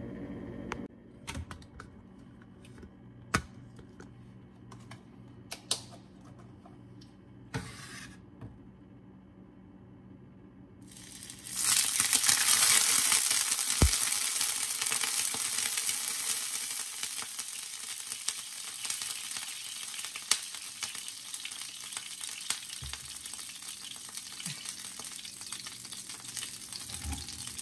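Beef broth hitting a pan of hot oil: a sudden, loud, spitting sizzle as the oil erupts and spatters, starting a little before halfway through and slowly dying down. Before it there are only a few faint clicks and knocks.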